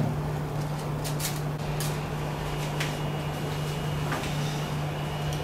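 A few light knocks and clicks from a plastic filament spool being fitted onto a 3D printer's top-mounted spool holder, over a steady low hum.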